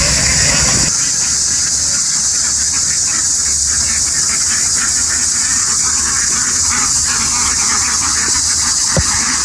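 A large packed flock of ducks, a dense, continuous mass of quacking and rustling over a steady high hiss. A low rumble drops away about a second in, and there is a short knock near the end.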